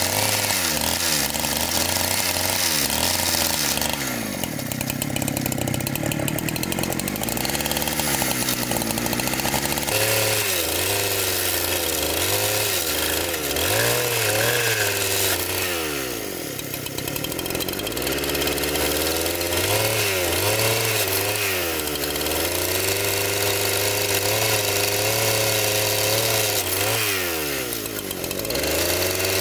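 Engine-driven wood-sawing machine running without a break, its engine note sagging and recovering about three times as it takes the load of the cut.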